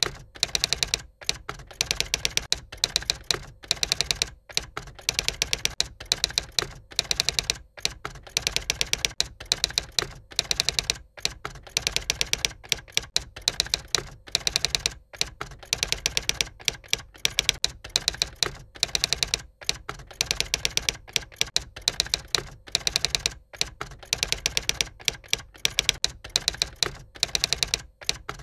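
Typewriter keys clacking in rapid runs of strokes broken by short pauses, as a typing sound effect that keeps time with text appearing letter by letter.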